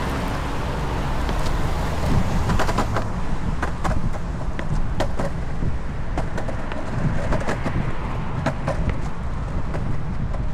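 Longboard wheels rolling over a concrete sidewalk: a steady low rumble broken by frequent sharp clacks as the wheels cross the slab joints.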